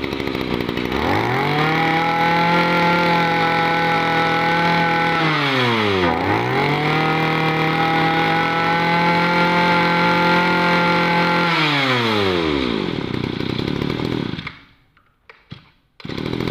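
A small two-stroke engine running at high revs. About six seconds in the revs drop sharply and pick straight back up. Around twelve seconds in they wind down and the engine goes quiet, then after a few faint clicks it revs up high again near the end.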